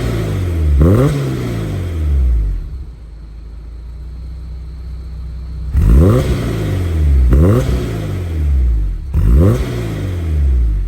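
Honda S2000 four-cylinder engine blipped to about 4,000 rpm through a stainless steel dual cat-back exhaust: two quick revs that rise and fall back right at the start, a steady idle for a few seconds, then three more blips close together.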